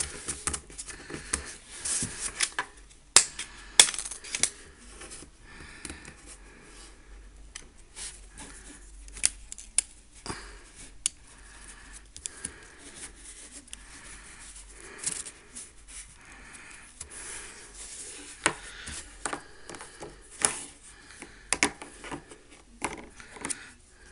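Handling of a smartphone and its battery: scattered plastic clicks, scrapes and rustles, with two sharp clicks about three and four seconds in, as the battery is fitted into the phone.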